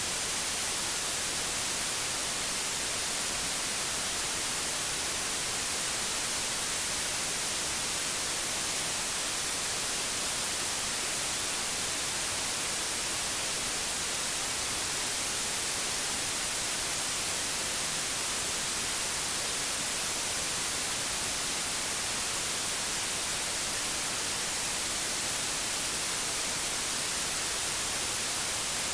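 Steady white noise: an even, unchanging hiss, strongest in the high end.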